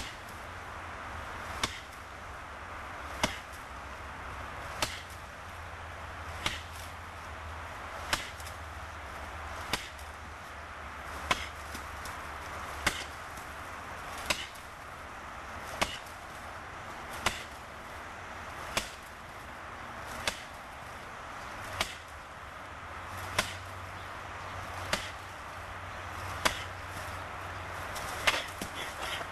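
Sharp blows striking wood, repeated at an even pace of about one every second and a half, over a steady background hiss.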